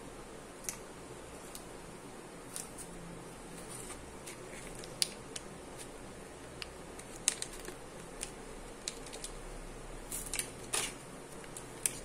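Plastic wrapper of a candy bar crinkling and clicking as fingers handle and squeeze it: sparse, irregular crisp clicks, with a quick cluster of louder crackles about ten seconds in, over a steady faint hiss.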